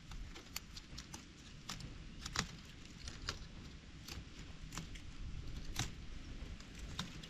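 Dry leaves and twigs crackling as someone moves through dry forest undergrowth: about a dozen short, sharp snaps at irregular intervals over a low steady rumble.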